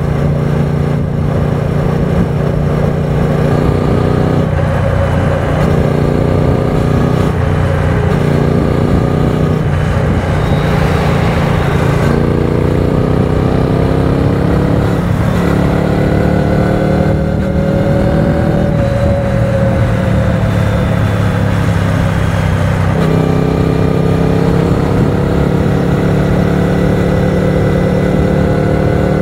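Triumph Speed Twin 900's parallel-twin engine running at road speed under a steady haze of wind rush. Its note climbs slowly in pitch and then drops back several times as the rider works the throttle and gears.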